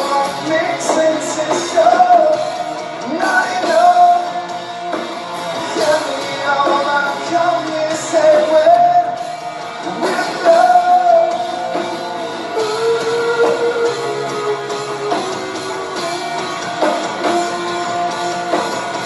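Rock band playing live with a singer: a sung melody over guitar and drums, loud and steady.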